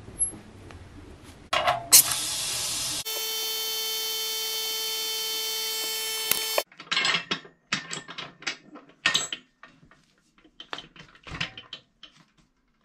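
Compressed air hissing into a resin-casting pressure pot, turning into a steady whistle that cuts off sharply after a few seconds as the pot is charged to pressure. It is followed by scattered light clicks and knocks.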